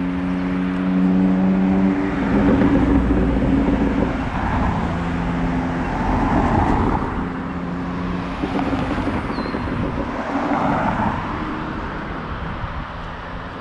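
Road traffic: a steady engine hum at the start, then cars passing one after another, each a rising and fading rush, the last about eleven seconds in.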